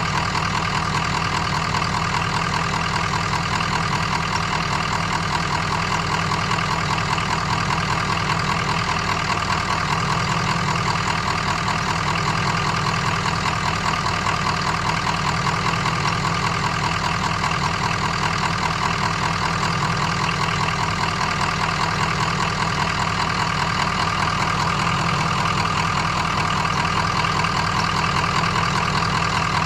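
Diesel semi-truck engine idling steadily, with an even, fast rhythmic chug.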